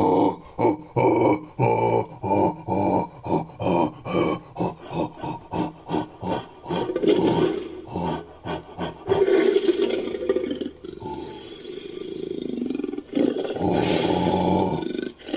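Made-up ape-man creature call mixed from a human voice and animal roar recordings: a rapid run of short grunting hoots, about three a second, then a long rough growl and a louder roar near the end.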